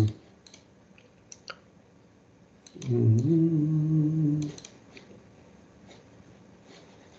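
A man humming a held "hmm" for about a second and a half, midway through, with a few soft computer keyboard and mouse clicks around it.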